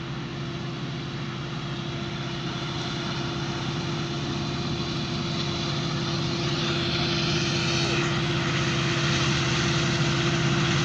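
Diesel locomotives of an approaching Norfolk Southern freight train: a steady engine drone that grows gradually louder as the train nears.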